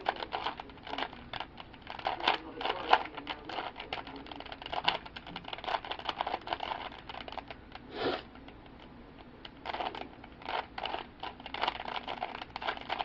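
3x3 Rubik's cube being turned quickly in the hands, its plastic layers clicking and clacking in rapid runs of turns, with a short pause about eight seconds in.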